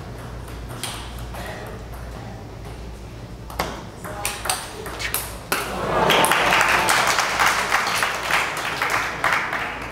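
Table tennis rally: the ball clicks off the paddles and the table for a couple of seconds, starting a few seconds in. The rally ends and a large crowd applauds the point, loudly and for several seconds, the loudest sound here.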